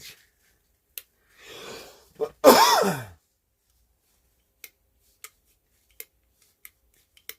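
A short, loud, breathy vocal sound from a person, followed by a few single sharp clicks spaced about half a second to a second apart, from a vintage flashlight's freshly oiled, still-stiff switch being worked back and forth.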